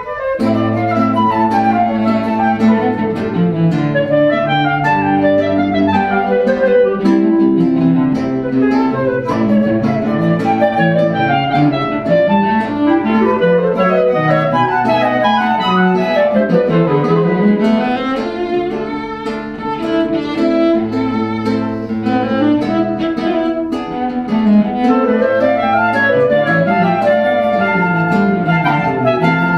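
Instrumental music: several melodic lines running up and down against each other over long held low bass notes.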